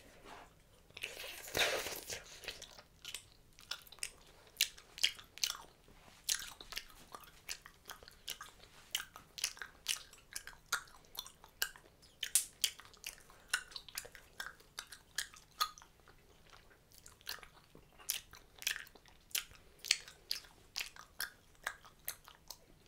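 Hubba Bubba bubble gum being chewed close to the microphone: a steady run of sharp smacking clicks, about two a second, after a brief rush of breath-like noise about a second in.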